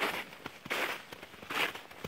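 Footsteps crunching in snow at a walking pace, three steps with a crackly crunch on each.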